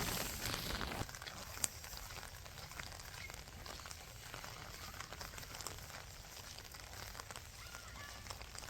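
Rain falling on a street: a steady patter and hiss, heavier for about the first second and then lighter, with scattered drip ticks and one sharper tap about a second and a half in.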